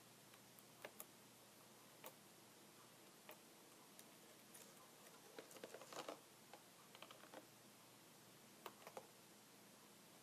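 Computer keyboard keys pressed slowly and unevenly, giving scattered soft clicks with a quick run of several in the middle, over a faint steady hiss.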